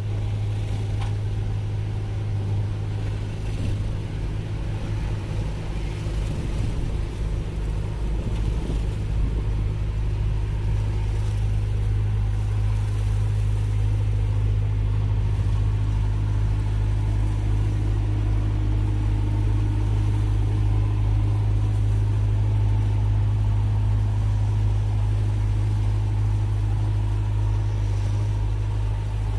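Steady low engine drone heard from inside a small vehicle's cab as it creeps through a truck wash, with water spray hitting the cab windows.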